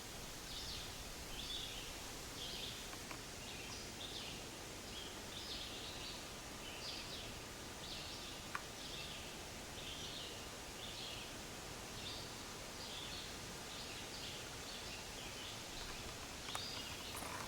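Faint outdoor background with a small creature chirping repeatedly, short high chirps coming a little more than once a second in an even rhythm.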